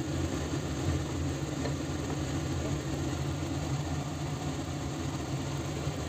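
Steady hum of an induction hob running under a chicken curry simmering in a stainless steel wok.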